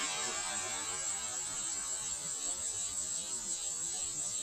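Steady hissing, humming background noise with no gunshots or other distinct events.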